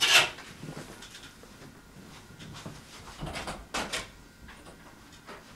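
A door being handled and shut off-screen as people leave the room: two sharp knocks about three and a half seconds in over quiet room tone.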